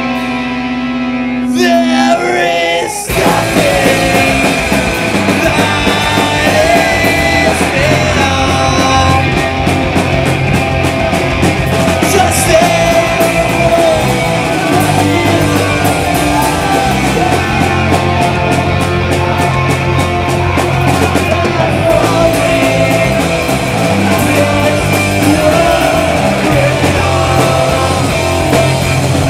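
Live rock band playing loud, with electric guitars, bass and drums. A sustained chord rings at first, then the full band comes in with drums about three seconds in.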